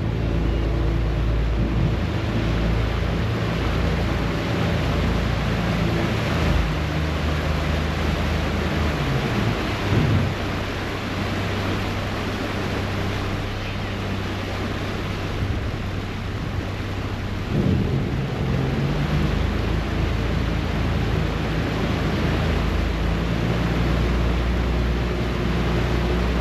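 Passenger ferry's diesel engine running with a steady low drone over the churn of its propeller wash and wind, with a couple of brief louder surges along the way.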